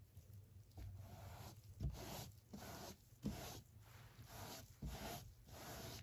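Gloved hands wiping wet acrylic paint off onto paper towels: a quick series of soft, faint rubbing swishes, about two a second.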